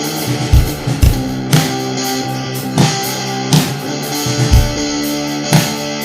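Rock music led by guitar, with a beat of hard, deep hits.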